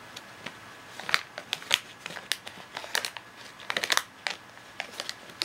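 A cat crunching Purina MonPetit Crispy Kiss dry treats with its head in the foil treat pouch. The treats crunch and the pouch crinkles in an irregular run of sharp crackles that starts about a second in.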